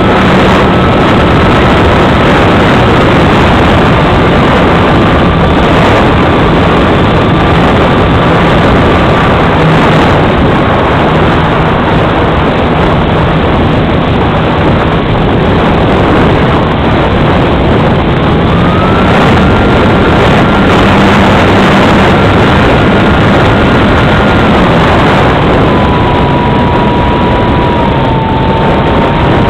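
Loud wind rush on the microphone of a camera riding on a flying radio-controlled model plane, over the whine of the plane's motor and propeller. The whine holds a steady pitch, dips a few seconds in, rises past the middle and falls again near the end as the throttle is changed.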